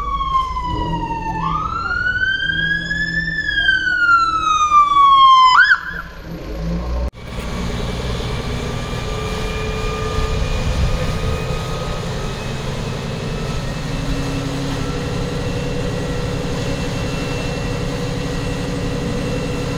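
An emergency vehicle's siren wailing, its pitch sliding down, then up, then down again, before cutting off about six seconds in. After a brief break, a steady low engine rumble runs on.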